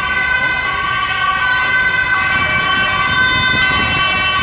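Emergency-vehicle siren sounding as several steady, high tones that change pitch only slightly, over a low rumble, getting gradually louder.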